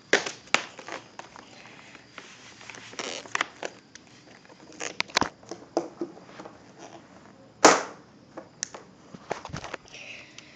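Plastic vacuum hose and wand being handled, making scattered clicks and knocks at irregular times. One louder knock comes about three-quarters of the way through. The vacuum motor is not running.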